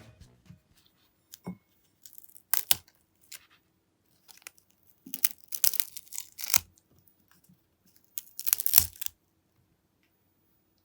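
Crisp, microwave-dried chicken-skin crackers crunching and cracking in several short bursts with pauses between.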